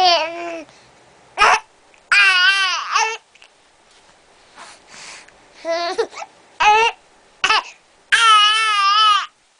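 Young girl babbling in a high, wavering voice, with short, sharp hiccups breaking in between her vocal sounds.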